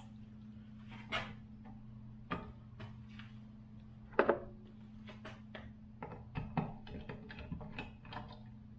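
Scattered clicks and knocks of hand tools and switch hardware being handled, with one louder sharp knock about four seconds in and a run of quick clicks in the second half, over a steady low hum.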